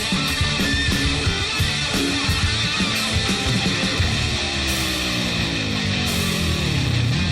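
Heavy rock music with distorted electric guitar and a steady drum beat. In the second half a note slides steadily down in pitch over about three seconds.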